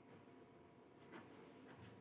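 Near silence: room tone with two faint short clicks, one about a second in and one near the end.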